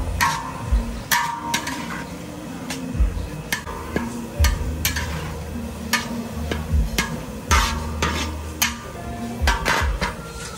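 A long-handled metal spatula scraping and knocking against a large metal wok as cabbage is stir-fried, giving irregular sharp clanks that ring briefly, a few to the second.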